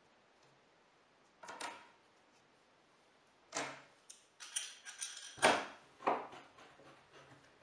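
Wooden pieces and clamps handled on a wooden workbench: a few separate knocks and clatters, busiest from about three and a half to six seconds in, the sharpest near five and a half seconds.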